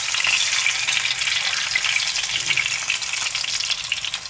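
A floured Mediterranean horse mackerel sizzling and crackling steadily in hot oil in a nonstick frying pan while it is turned over with a fork and knife.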